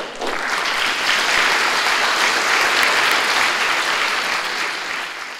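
Audience applauding at the end of a lecture, the clapping swelling up right away, holding steady, and tapering off near the end.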